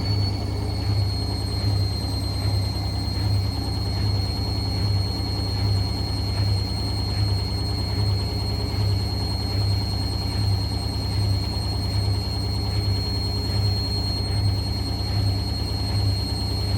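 Hotpoint WML540 washing machine running with its drum at a steady high speed. A constant high-pitched motor whine sits over a strong low hum that pulses a little under twice a second.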